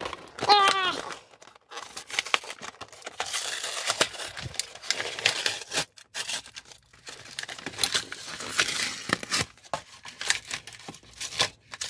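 Toy packaging being torn and crinkled open by hand: cardboard and plastic pulled apart, with steady rustling and many sharp clicks and snaps. There is a brief high-pitched squeak about half a second in.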